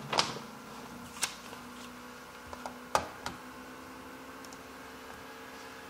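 A handful of light clicks and taps in the first three and a half seconds as a paper drawing is handled on a desk, over a faint steady hum.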